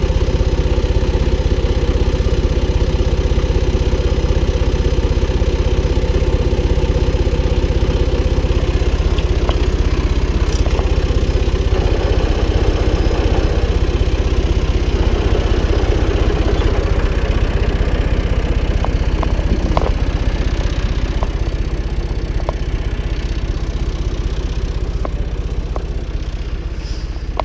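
Valtra BF-75 tractor's diesel engine running steadily, with scattered short clicks and knocks in the second half. The engine gets slightly quieter near the end.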